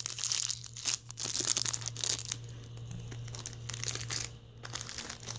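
Thin clear plastic bag crinkling and crackling as it is handled, in dense crackles that thin to scattered bursts after about two seconds. A steady low hum runs underneath.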